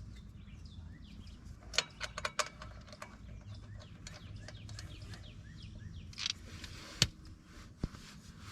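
Small birds chirping over a low steady background, with a few sharp clicks about two seconds in and again near the end.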